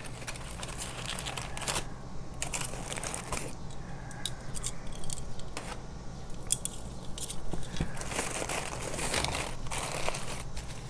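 Heavy-duty aluminium foil crinkling and crumpling in irregular bursts as it is pulled apart and handled by hand.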